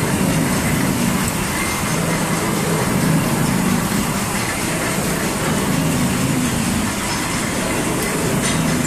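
Textile dyeing-unit machinery running steadily, a loud continuous mechanical noise with a low rumble and a faint clatter.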